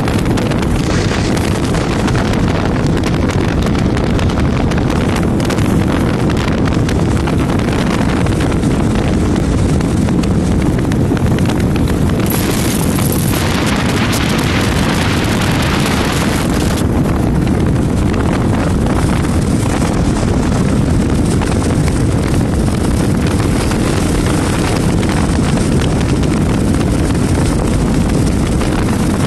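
Wind rushing over the microphone of a motorcycle riding at road speed, with steady engine and road noise underneath. About halfway through, a brighter hiss swells for around four seconds, then drops back.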